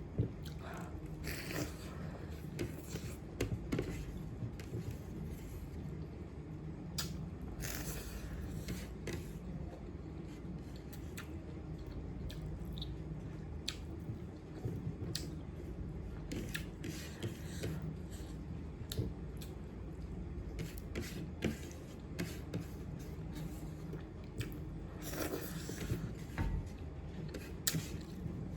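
A person eating: chewing, with scattered short clicks and scrapes of food and utensils, over a steady low hum.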